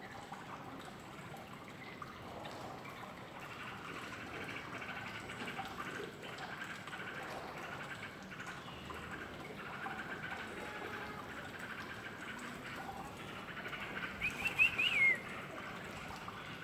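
Yellow-vented bulbul calling: a short burst of quick, high chirps about fourteen seconds in, over a faint steady background hiss.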